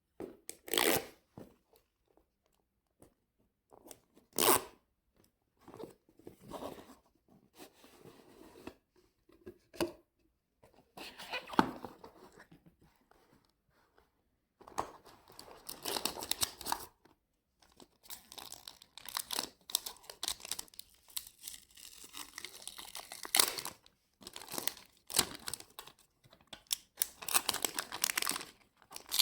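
Product packaging being opened and handled: tearing, crinkling and rustling with sharp clicks, in irregular bursts with short pauses, busier in the second half.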